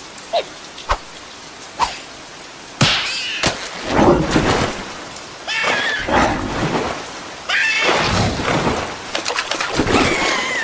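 Cartoon sound effects: a few light ticks, then loud rushing, splashing water noise in waves, with high, squeaky, wavering cries from the cartoon's larva characters laid over it from about three seconds in.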